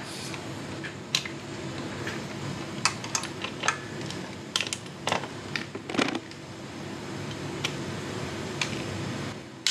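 Irregular light metallic clicks and taps from hand work on a motorcycle's brake pedal linkage and aluminium footpeg side plate, over a faint steady hum.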